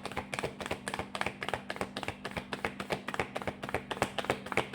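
A deck of tarot cards being shuffled by hand: a rapid, even run of light clicking slaps, several a second.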